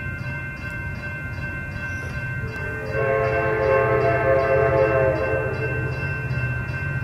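Railroad crossing bell ringing at about three strokes a second over a low rumble of an approaching train. About three seconds in, the locomotive's air horn sounds one long chord lasting about three seconds.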